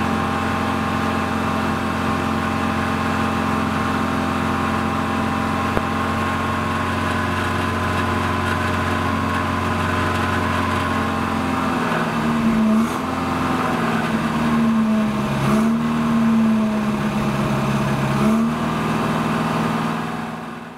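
Four-cylinder carbureted B23A engine of a 1986 Volvo 245 running at idle, steady at first. From about twelve seconds in, its pitch dips and comes back up several times. The sound fades out near the end.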